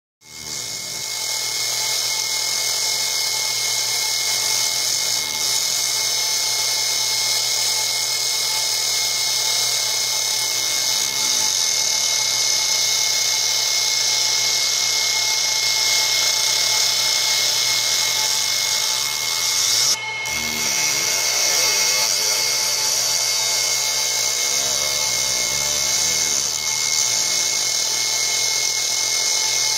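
Laser engraving machine running as its beam ablates a metal pistol slide: a steady, loud high hiss with a constant whine and low hum, broken briefly about two-thirds of the way through.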